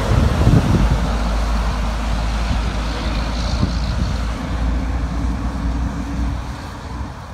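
Steady road-traffic rumble from vehicles on the highway, easing off near the end.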